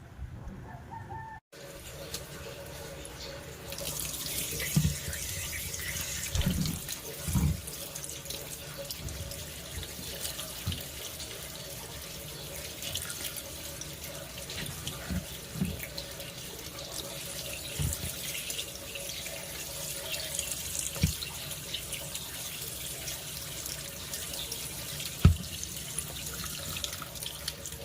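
Water running from a tap into a sink, a steady rush, with scattered soft knocks, starting about a second and a half in.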